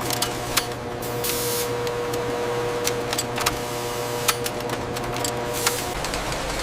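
Factory machinery running with a steady hum, with irregular sharp clicks and a short hiss about a second and a half in. Near the end the hum stops and an even rushing noise takes over.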